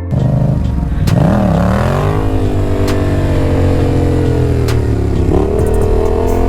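Yamaha XSR700's 689 cc parallel-twin engine running under throttle while being ridden. Its pitch dips about a second in and again near five seconds, then climbs back each time, with a few sharp clicks along the way.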